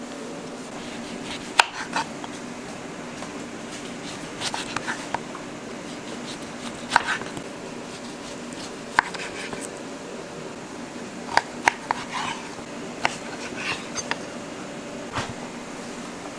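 Chef's knife slicing through citrus fruit and striking a bamboo cutting board in scattered single sharp knocks, over a steady low hum.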